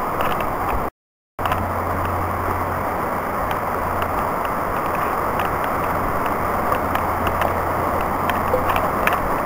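Rain-swollen brook rushing over rocks: a steady rush of water, cut by a brief dropout about a second in.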